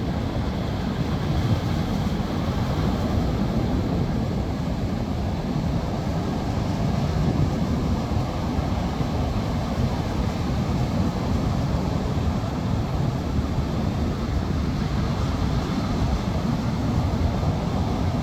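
Sea surf washing onto a beach, with wind buffeting the microphone: a steady low rumble.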